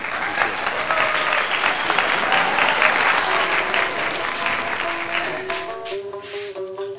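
Applause over background music; the clapping thins out about five seconds in and the melody's notes come through more clearly.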